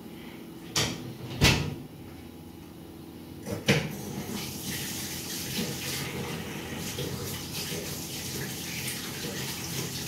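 A few sharp knocks and clatters of kitchen things being handled, then from about four seconds in a kitchen tap running steadily into a sink.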